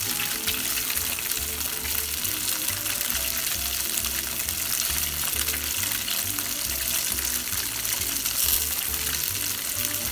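Atsuage (thick fried tofu) cubes sizzling steadily in hot oil in a wok over high heat, crisping as they are turned. Light background music with a bass line plays underneath.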